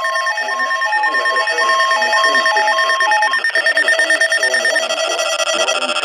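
Several NOAA weather radios sounding their alert alarms at once. A two-pitch warbling alarm alternates about twice a second and cuts off a little after three seconds in, over steady alert tones and a muffled broadcast voice. Near the end another radio's steady multi-tone alert starts up.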